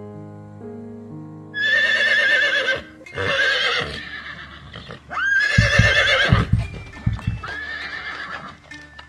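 Piano music that gives way after a second and a half to a horse whinnying four times, each call high and quavering, the last one fainter. Several low thuds sound during and after the third whinny.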